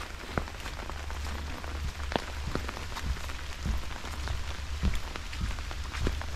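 Steady rain with many separate drops tapping sharply close by on an umbrella overhead, and a low rumble underneath.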